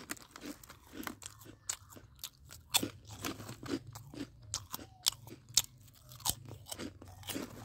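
Crisp, uneven crunches and crackles, several a second: a foil packet of potato chips being handled and the chips crunched.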